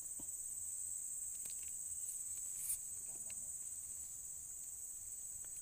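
Steady high-pitched chorus of insects trilling, with a few faint clicks, one a little sharper just before the middle.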